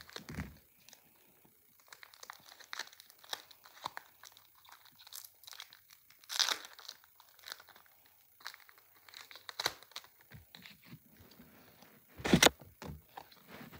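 Pokémon card booster pack's foil wrapper crinkling and being torn open, in scattered short rustles and rips, the loudest near the end.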